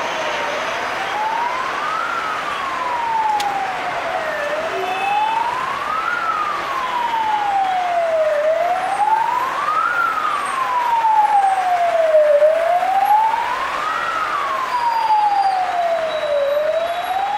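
A siren wailing slowly, rising and falling in pitch about every four seconds, over a steady rushing noise.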